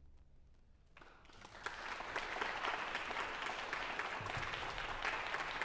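The orchestra's last low notes die away, and about a second in the audience breaks into applause that goes on steadily.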